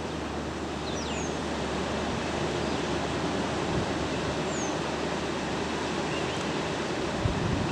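Steady rush of distant surf and wind, with a few short, faint bird chirps over it.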